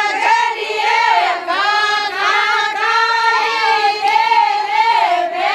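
A group of women singing a Marwari Fagan folk song together in high voices, in long held melodic phrases.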